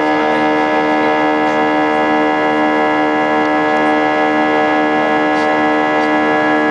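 Airbus A320 jet engines heard from inside the cabin during the climb after take-off: a loud, steady drone made of many fixed tones at once, with no change in pitch.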